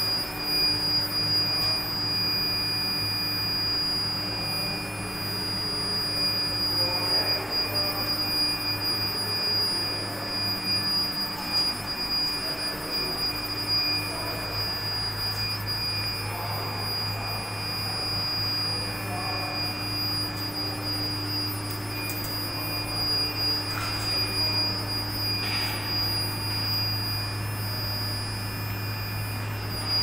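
Induction melting furnace running: a steady high-pitched whine over a low hum.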